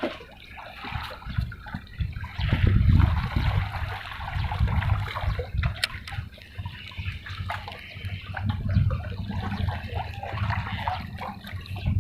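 Water lapping and sloshing, with uneven low surges and a few small knocks.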